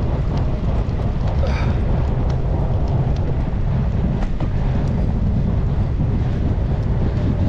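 Steady wind rumble buffeting the microphone of a bicycle being ridden, with faint scattered ticks.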